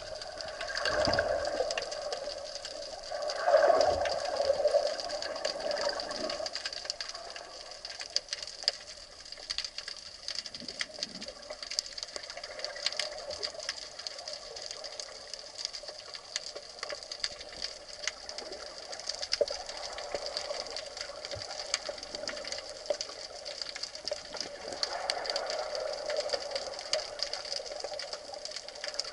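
Underwater sound picked up by a submerged camera: a steady hiss laced with a dense, faint crackle of tiny clicks, with louder rushing swells of water movement in the first few seconds.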